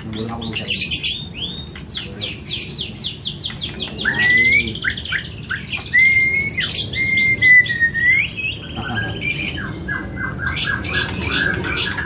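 White-rumped shama (murai batu) singing a long, varied song. It opens with quick chattering notes, has clear whistled phrases that slide up and down in the middle, and ends with a fast run of repeated notes.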